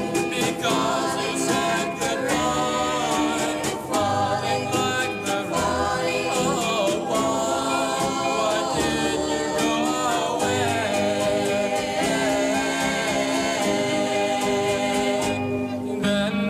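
Doo-wop record: a vocal group singing in close harmony, with held chords over low bass notes.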